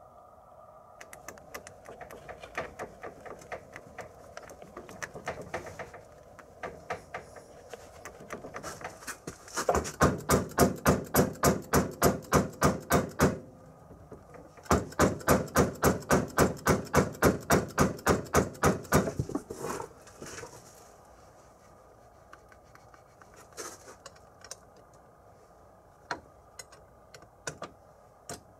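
Sharp metallic tapping from hand tools working on the rice transplanter's front axle parts: lighter scattered clicks, then two loud runs of rapid, even strikes at about six a second lasting a few seconds each, then a few isolated knocks.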